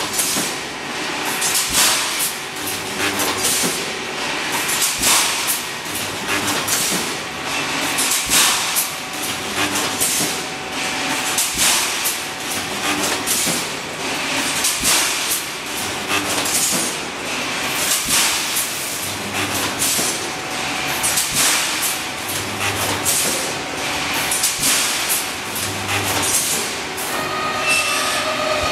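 Automatic rebar mesh welding machine running: a repeating cycle of sharp metallic clanks every second or two as the welding heads close on the rebar crossings and the mesh is stepped forward, over a steady mechanical rattle.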